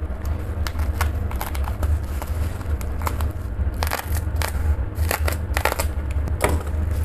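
Black plastic mailer wrap crinkling and crackling in irregular bursts as it is slit with a cutter knife and handled, over a steady low hum.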